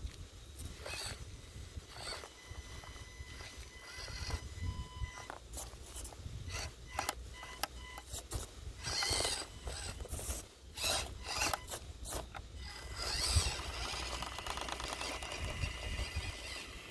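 Axial SCX24 1/24-scale rock crawler driving over rock: its small electric motor and gears whine in short stop-start spurts, with scrapes and clicks of tyres and chassis against the stone.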